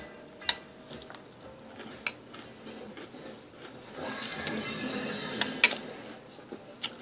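Metal spoon clinking and scraping in a bowl of cereal, with a few sharp clinks and a louder stretch of scraping about four to six seconds in.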